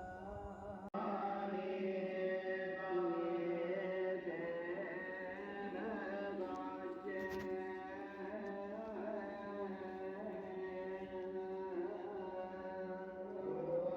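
Chant-like singing in long held, gently sliding notes over music, with a brief sharp break about a second in.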